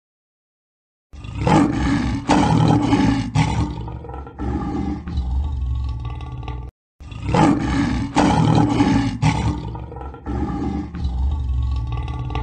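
A big cat roaring, a series of rough roars and growls that starts about a second in, breaks off briefly, then repeats in much the same pattern.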